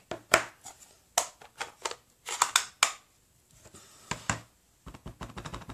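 Scattered light taps and clicks of a clear rubber stamp on its acrylic block and card stock being handled on a craft table, with a quick run of small ticks near the end.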